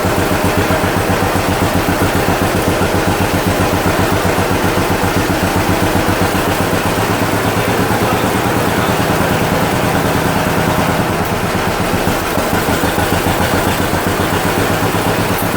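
1948 John Deere B tractor's two-cylinder engine running steadily, its firing heard as an even, rapid string of pulses, echoing inside a metal building. It is running on its first start after a full restoration, still untuned and without its air cleaner.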